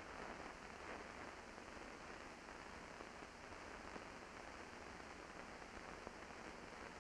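Faint steady hiss with scattered small crackles: the surface noise of an old film soundtrack.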